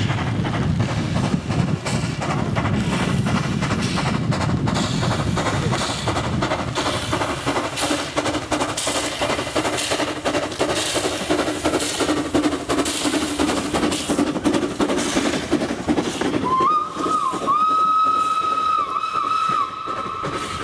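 Small metre-gauge steam tank locomotive passing, its exhaust beats chuffing rapidly and evenly. About three-quarters of the way through a steam whistle sounds one long, steady blast of about four seconds, dipping briefly in pitch a few times.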